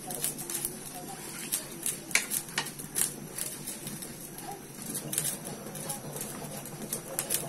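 A wooden spatula stirring green beans in coconut milk in a metal wok, knocking and scraping against the pan in irregular light clicks.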